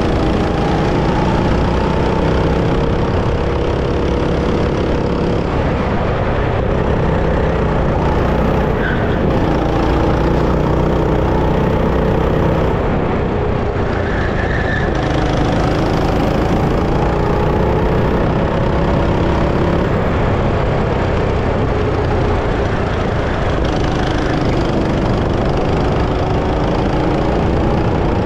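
Go-kart engine running hard, its pitch climbing and dropping again and again as the throttle opens and closes, over a steady low rumble.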